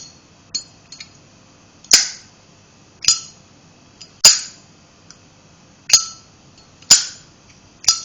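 Brushed-chrome Zippo lighter's hinged lid snapped open and shut again and again: a sharp metallic click with a short bright ring each time, about one a second, with a few fainter small clicks in between.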